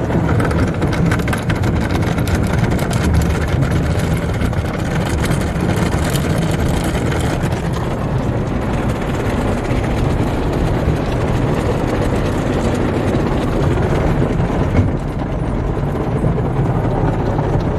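Spinning cloth brushes of a Belanger mini tunnel car wash scrubbing and slapping against the car's glass and body, with water spray and machinery hum, heard from inside the car. A rapid patter of strokes is strongest in the first several seconds.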